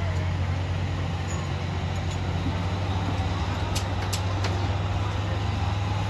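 Steady low drone of a large engine running at a constant speed, with a few light clicks about four seconds in.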